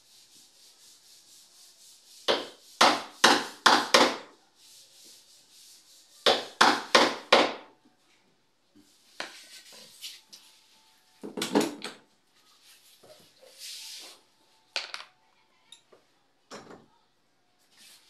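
Steel wood chisel cutting a recess into a wooden door jamb for a lockset's strike plate. Two volleys of four or five sharp knocks in quick succession, about two and six seconds in, with quieter scraping of the blade on the wood between them. A rougher burst comes near the middle, followed by a few scattered knocks.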